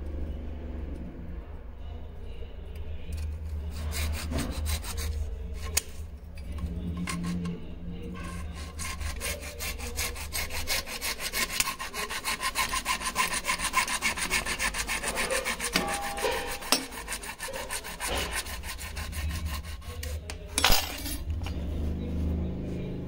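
Rapid, even back-and-forth strokes of a hand tool sawing or rasping, heaviest through the middle, with one sharp knock near the end.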